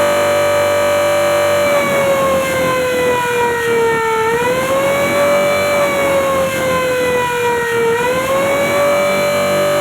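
Electric motor-driven air raid siren rated at 440 volts, wailing steadily at full speed with a loud high tone. Twice its pitch sags slowly over a couple of seconds and then swings quickly back up.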